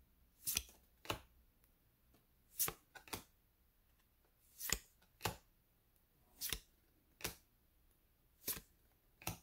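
Football trading cards being flipped through one at a time, each card slid off the stack and tucked behind it with a pair of short, sharp card-on-card swipes. This repeats about every two seconds, five times.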